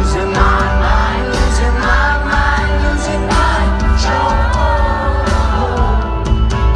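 Loud live rock music: a band playing with a lead singer over a heavy bass.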